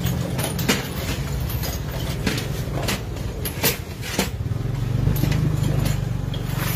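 Impact wrench running on a bolt of a scooter's engine case: a steady low drone that grows louder about four and a half seconds in, with scattered sharp metallic clicks.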